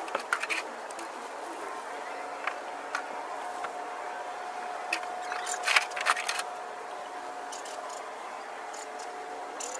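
Scattered knocks and rattles of a manual wheelchair being handled and lifted onto a pickup truck's tailgate, loudest in a cluster about halfway through, over a steady faint tone.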